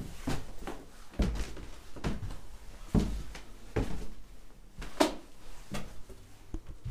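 A series of irregular knocks and thumps, about ten in all, with the loudest about five seconds in.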